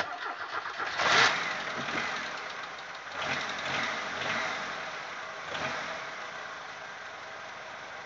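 Audi 1.8-litre 90 hp inline-four petrol engine being started: the starter cranks for about a second, the engine catches, blips up a few times and settles into idle. Just after the start the owner hears one hydraulic lifter knocking.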